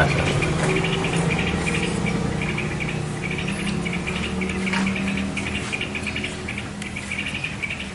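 Insects chirping in repeated short pulsed trills, over a low steady hum.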